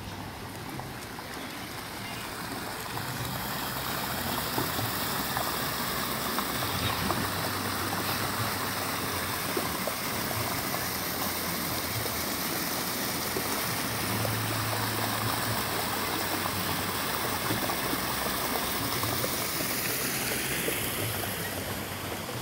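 Steady rush of running water that swells a few seconds in, holds, and eases off near the end, over a faint low hum.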